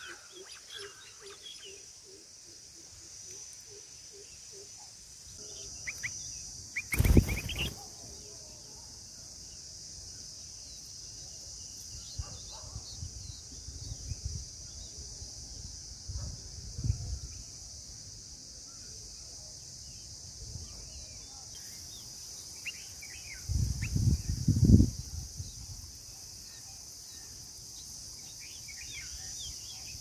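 Outdoor nest-side ambience: a steady high-pitched insect drone with scattered short bird chirps, busiest at the start and near the end. Two loud low thumps, about seven seconds in and again around twenty-four seconds in, are the loudest sounds.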